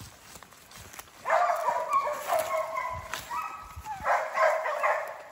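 Hunting dogs barking at a bear they have treed: high-pitched, overlapping barks and yelps that start about a second in and go on without a break.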